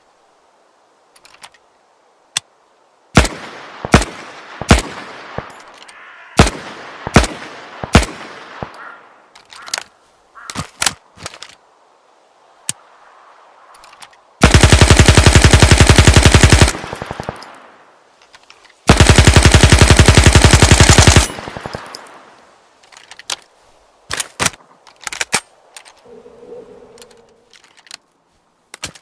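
Zubr-19 submachine gun sound effect: a run of about seven single shots, each ringing off, then two long fully automatic bursts of two seconds or more each, separated by scattered sharp clicks.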